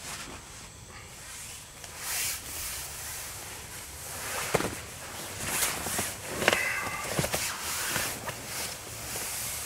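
Fabric rustling as a person shifts and lies back in a camping hammock, with a few soft knocks and a short squeak past the middle.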